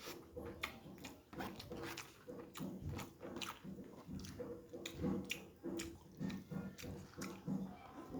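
Close-miked chewing and eating: wet mouth smacks and clicks at an irregular pace.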